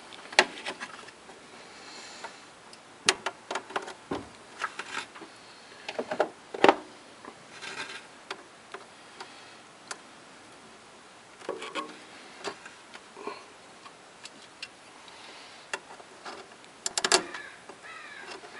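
Pliers clicking and scraping on a metal hose clamp while the transmission cooler hose is fitted to the radiator: irregular sharp metallic clicks, with the loudest about a third of the way in and a quick cluster near the end.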